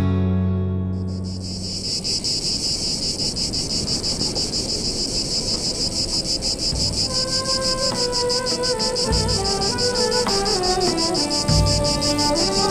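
Steady, high-pitched insect chirring with a rapid pulsing beat comes in about a second in. From about seven seconds a soft melody plays beneath it, with a few low thuds near the end.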